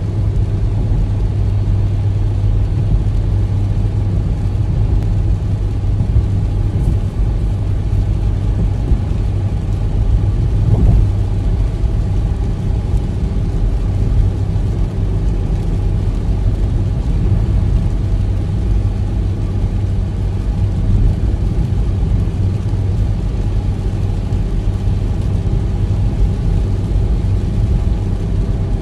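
Steady low rumble of a car's engine and tyres on a wet road, heard inside the cabin, with a faint hiss of rain and spray.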